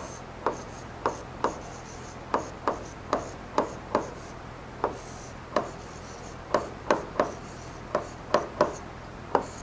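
Pen stylus tapping and scraping on the glass of an interactive display panel during handwriting: irregular sharp taps, about two a second, with faint scratchy strokes between them.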